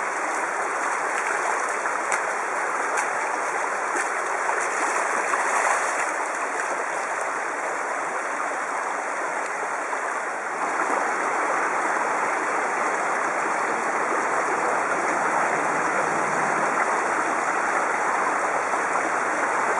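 Shallow creek water rushing steadily over gravel and stones, a little louder from about eleven seconds in.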